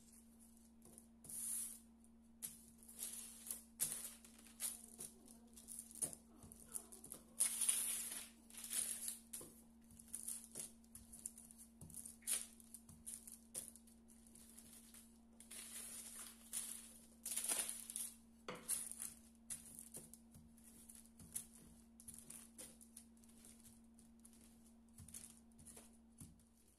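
A wooden rolling pin rolls out soft dough on baking parchment, making repeated short rustles and swishes of the paper with each stroke. Under them runs a faint steady low hum.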